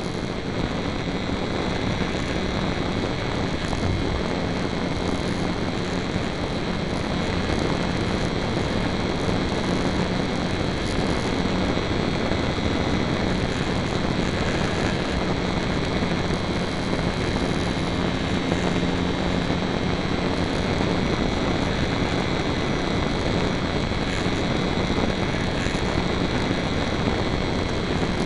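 HobbyZone Super Cub RC airplane's electric motor and propeller running steadily in flight, heard close up from a camera mounted on the plane: a steady whine over rushing air.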